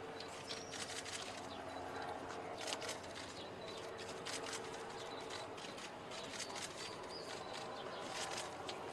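Quiet open-air ambience with a faint steady murmur, a bird chirping, and scattered sharp clicks, some coming in quick runs of several.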